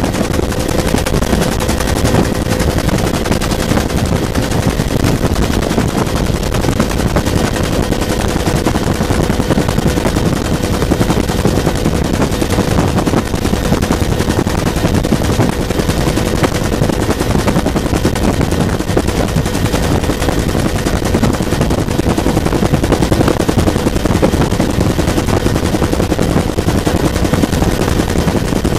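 Bell UH-1 Huey helicopter in flight, heard from inside the cabin: the steady, rapid beat of its two-blade main rotor, loud and unbroken, with a faint steady whine underneath.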